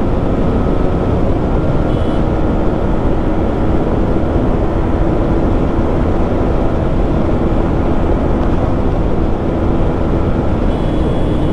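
Yamaha MT-15's 155 cc single-cylinder engine, fitted with an Akrapovic exhaust, cruising at a steady speed with no revving, under a heavy rush of wind on the microphone.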